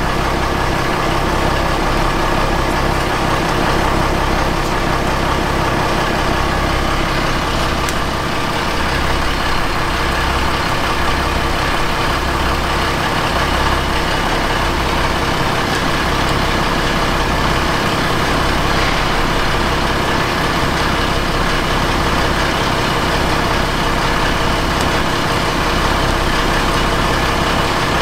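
A fishing boat's engine running steadily at a constant speed, with a low, even throb.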